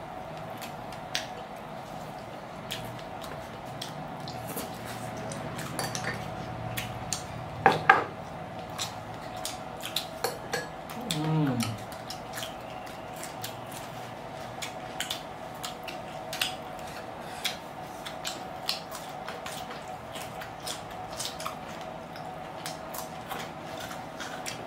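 Close-up eating sounds: chewing and crunching of breaded chicken and raw cucumber sticks, with many sharp clicks of chopsticks and dishes over a faint steady hum. There is a loud clatter about eight seconds in, and a brief falling hum from a voice a few seconds later.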